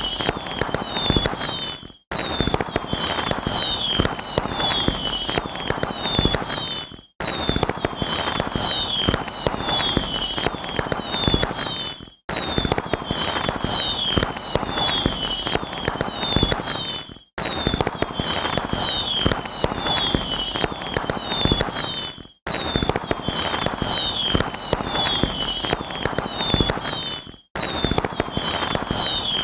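Dense crackling of firecrackers or fireworks, with short high falling chirps over it. It plays as a loop of about five seconds that cuts out for a moment and restarts, six times.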